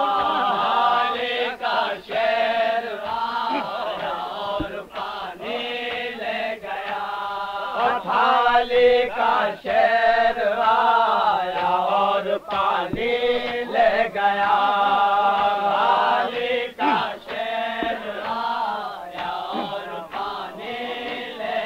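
Men's voices chanting an Urdu salam without instruments, a sustained melodic recitation that rises and falls in long drawn-out phrases.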